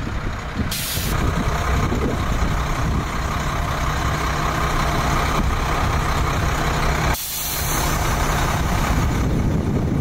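Diesel fire engine idling with a steady low drone. A short hiss comes about a second in, and a longer one around seven seconds in.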